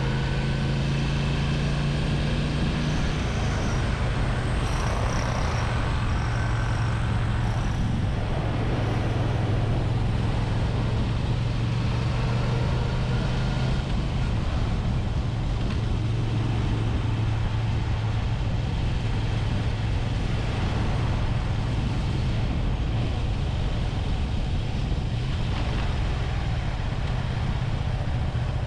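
Honda VT250F Integra's 250 cc V-twin engine running at a steady, even pitch, heard from the motorcycle with road and traffic noise around it.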